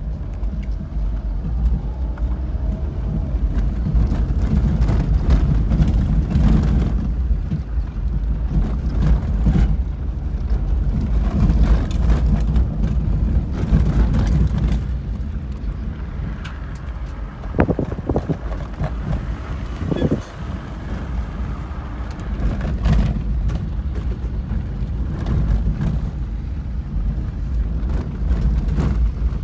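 A car's engine and tyres rumble steadily as heard from inside the cabin while it drives over a rough, unpaved dirt track, with a few sharp knocks a little past the middle.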